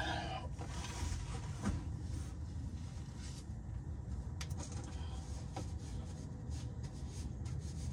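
Low steady background hum with a few faint, short clicks and light knocks.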